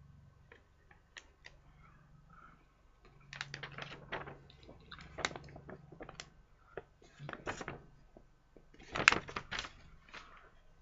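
Crinkling, rustling and clicking from the packaging and instruction sheet of a plastic model kit being handled, in several clusters, the loudest about nine seconds in.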